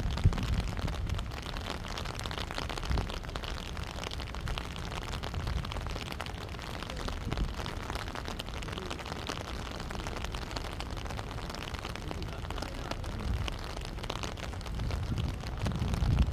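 Wind buffeting the microphone: a gusty low rumble over a steady hiss, strongest at the start and again near the end.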